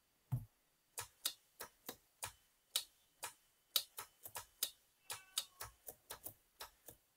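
Two small DC push-pull solenoids clicking as their plungers snap in and spring back, driven by a MIDI sequence. They make a string of sharp clicks in an uneven rhythm, about three a second, coming closer together in the middle.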